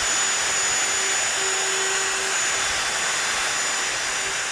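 Festool plunge router running at speed while it bores shelf-pin holes through a template into red oak plywood: a steady high-pitched whir.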